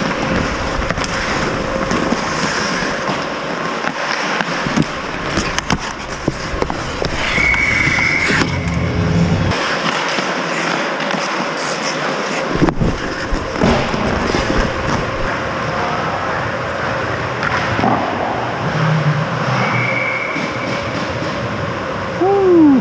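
Ice hockey play close around the goal: skate blades scraping and carving the ice, with frequent short clacks and knocks from sticks, puck and pads over a steady rink hum.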